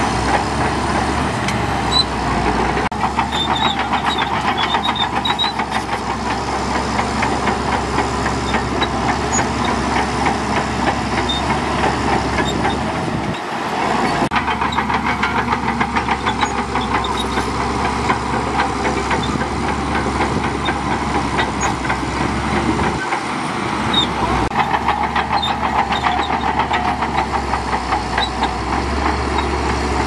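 SHANTUI DH17C2 bulldozer's diesel engine working steadily while pushing sand, with a fast, even clatter through it. The deep engine note drops out briefly twice, just under halfway through and again about three-quarters of the way in.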